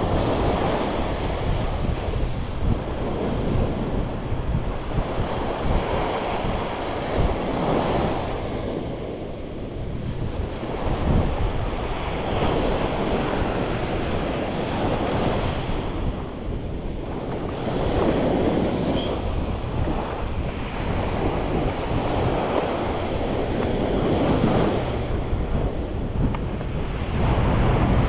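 Small surf breaking and washing up a sandy beach, swelling and ebbing every few seconds, with wind buffeting the microphone.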